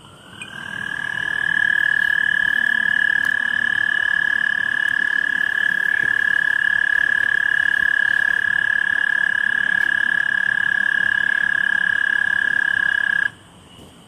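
A toad giving one long, steady, high-pitched trill. It swells in over the first second or so, holds for about twelve seconds and cuts off suddenly near the end.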